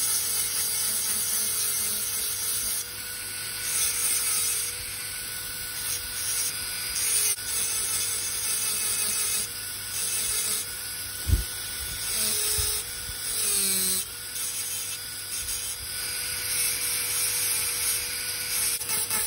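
High-speed dental handpiece with a green-banded bur grinding the cusps of a plastic typodont molar for occlusal reduction. The grinding hiss comes and goes in strokes over a steady whine that sags briefly in pitch about two-thirds through. There is one short low knock a little past halfway.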